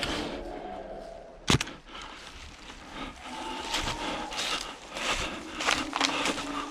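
Irregular scraping and rustling, with one sharp crack about a second and a half in.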